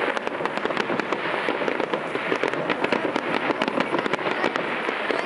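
Fireworks display going off: a dense, continuous stream of many rapid crackles and pops.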